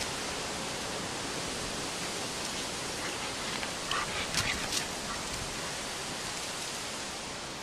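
A steady hiss of outdoor background noise. About four to five seconds in come a few short crackles of dry leaves as a dog's paws run across the leaf-covered lawn.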